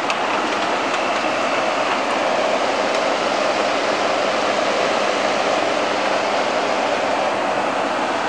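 Haier window air conditioner running up close: a steady, even rush of fan and blower noise that holds constant throughout.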